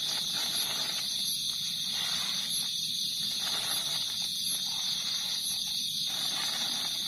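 Steady, high-pitched chorus of night insects, with a second, higher insect chirping in an even pulse a little more than once a second. A softer, irregular rustle comes and goes underneath.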